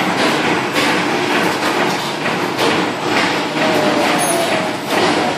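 Damol FMU 1.7 CNC spring-forming machine running, feeding and bending 1.40 mm wire. Its tooling makes a continuous metallic clatter with repeated knocks.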